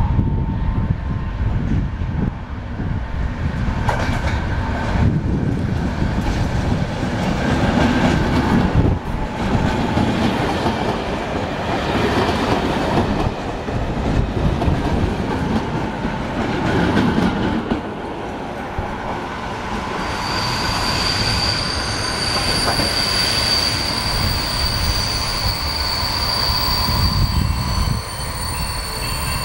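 A passenger train rolling into a station and slowing, its wheels knocking over rail joints and points. About two-thirds of the way in, a steady high squeal from the wheels and brakes sets in and holds as the train brakes to a stop.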